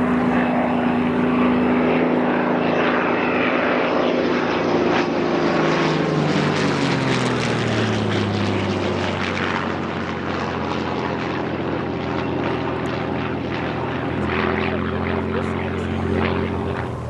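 World War II piston-engined propeller warbird flying past, its engine drone sliding down in pitch as it goes by, then holding a lower steady drone. A new engine tone comes in a couple of seconds before the end.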